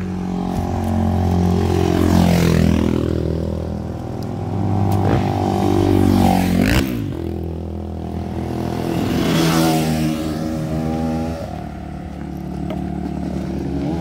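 Off-road motorcycle engines revving and passing, their pitch rising and falling several times, loudest about two, six and ten seconds in.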